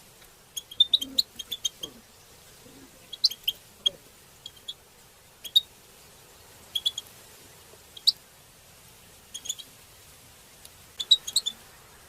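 European goldfinches giving short, sharp 'pit' call notes, singly and in quick clusters of two to four, with irregular gaps between them.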